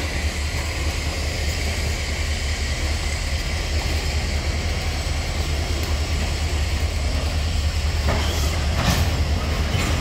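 Freight train's tank and flat cars rolling slowly past on the rails: a steady low rumble with a thin high whine over it, and a couple of knocks near the end.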